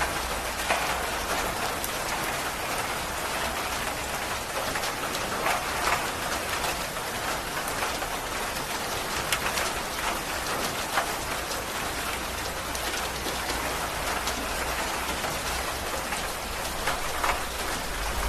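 Heavy rain falling steadily on jungle foliage and a stone path, a dense even hiss with scattered louder drop hits and a faint low rumble underneath.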